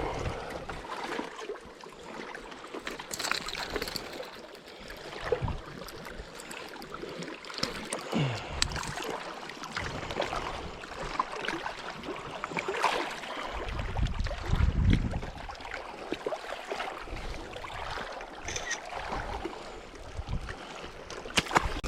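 Lake water lapping and splashing, with scattered clicks and knocks of fishing gear handling and a low rumble about two-thirds of the way through.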